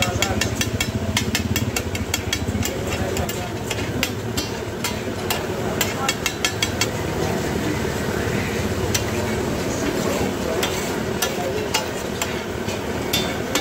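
Metal spatula scraping and clacking against a large flat metal griddle as beef liver and tomato masala are stirred and pushed together, over the sizzle of frying. The clacks come fast and thick for the first half, then more sparsely.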